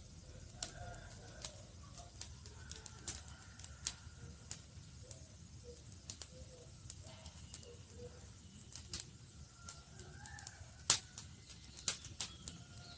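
Wood campfire crackling: irregular sharp pops and snaps over a low, steady rush, with one loud snap about eleven seconds in.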